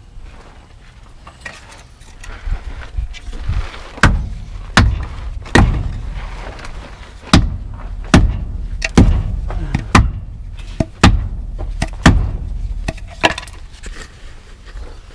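Hammer blows struck on a stuck, calcium-loaded tire and wheel to knock it loose from its hub. A few light knocks come first, then about a dozen hard strikes, roughly one a second, some with a short ring.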